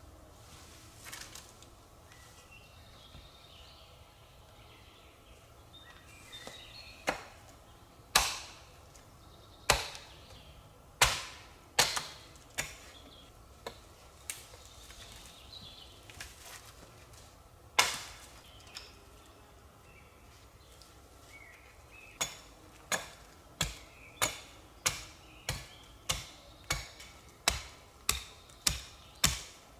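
Wood being chopped: scattered sharp blows at first, then a steady run of strikes about one and a half a second, starting a little past the middle.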